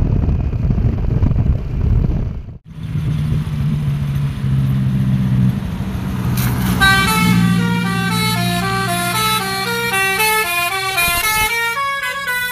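Bus engine and road noise that cuts off abruptly about two and a half seconds in, then a low steady hum. From about halfway in, a bus's 'telolet basuri' musical horn plays a fast melody of short notes stepping up and down in pitch.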